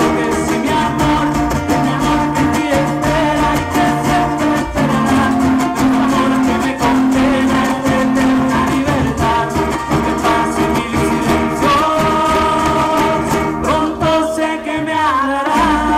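Music playing: a song with guitar and a singing voice.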